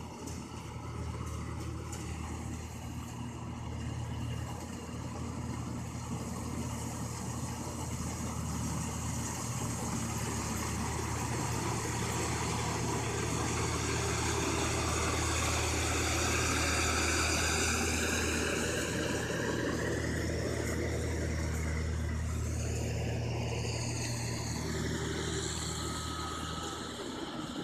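Rice combine harvester running steadily, its engine tone constant under a noisy mechanical wash, with a whine that shifts up and down in pitch over the last several seconds.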